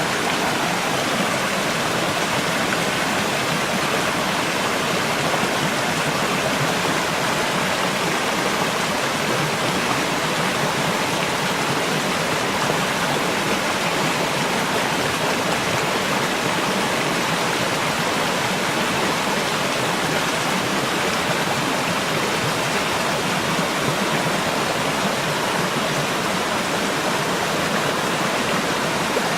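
Creek water flowing, a steady even rush that does not change.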